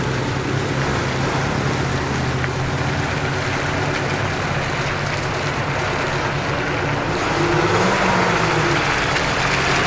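Off-road vehicle engine running steadily under a spread of noise, its revs rising and the sound getting a little louder about seven seconds in.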